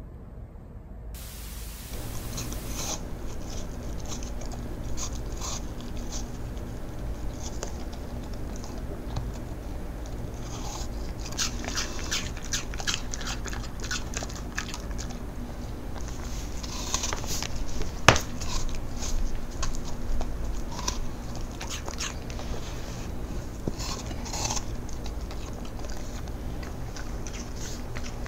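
Cocker spaniel crunching and chewing raw apple slices: a run of crisp, wet crunches, with one sharp, loud crack about two-thirds of the way through.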